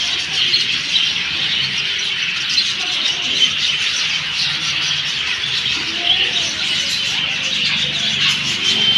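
Many small birds chirping and twittering at once, a dense, continuous chorus of short high calls.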